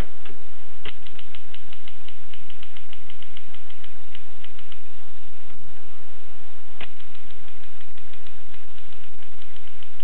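Rheinmetall portable typewriter being typed on: a fast run of key strikes, several a second, with a few heavier clacks at the start, just under a second in and about seven seconds in.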